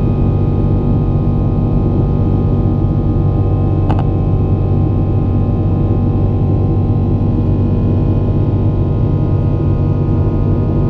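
Steady drone of an airliner's engines and airflow heard inside the cabin, with a short click and brief ring about four seconds in.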